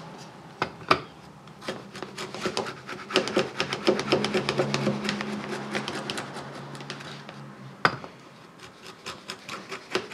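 Hand router plane cutting into hardwood: a quick, uneven run of short scraping cuts, several a second, with one sharp knock near the end.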